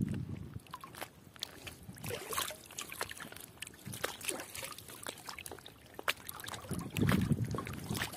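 Water sloshing and dripping around a fishing net being handled at the water's surface, with many small splashes and clicks. A brief low rumble comes near the end.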